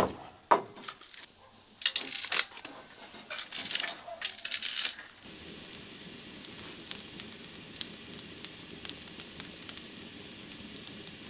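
Several knocks and rustling bursts, then, from about five seconds in, a wood fire burning in a fireplace: a steady hiss with scattered sharp crackles and pops.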